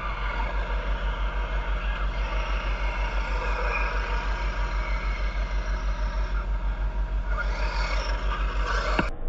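Radio-controlled cars driving on tarmac, one passing close by near the end, over a steady low throb that pulses about six or seven times a second.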